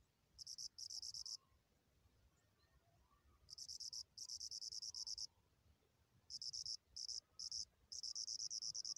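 A cricket trilling in repeated high-pitched, rapidly pulsed bouts of about half a second to a second each, with short pauses between them.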